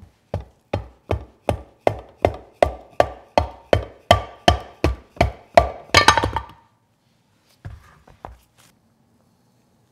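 Hammer blows on the 10 HP Briggs & Stratton engine's aluminium block, about fifteen even taps at roughly two and a half a second, knocking the piston out through the cylinder. A short clatter follows near six seconds, then a few light knocks.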